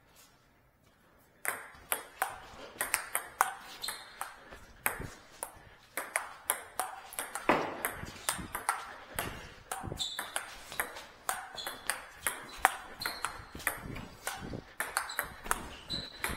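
Table tennis ball being hit back and forth with rackets and bouncing on the table: a fast, irregular run of sharp clicks, several a second, starting about a second and a half in.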